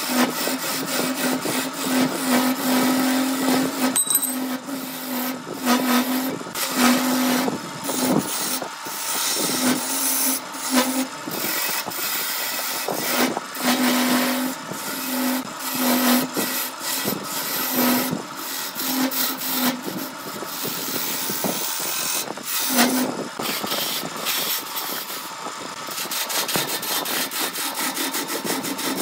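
Wood lathe spinning a laminated wood blank while a hand-held turning gouge cuts into it: a rough, uneven scraping cut that swells and eases as the tool bites. A steady low hum comes and goes under it.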